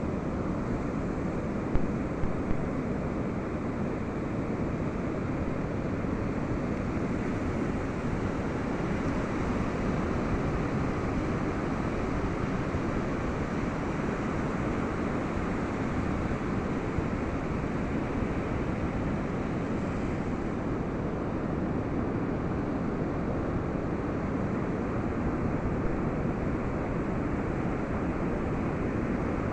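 Ocean surf washing onto a beach in a steady rush, with wind noise on the microphone; a few brief knocks about two seconds in.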